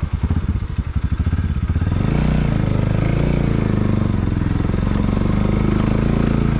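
Bajaj Pulsar NS200's single-cylinder engine idling with a slow, even beat, then pulling away about two seconds in, its note rising and then holding steady at low riding speed.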